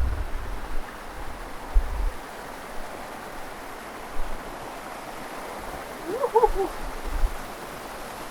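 Steady rushing of water tumbling down a mountain waterfall, with a few low thumps on the microphone.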